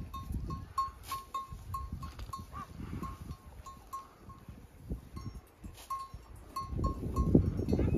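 A small livestock bell clinking in a steady run of short high notes, about three a second, as goats and cattle graze. Low rumbles of wind on the microphone swell near the end.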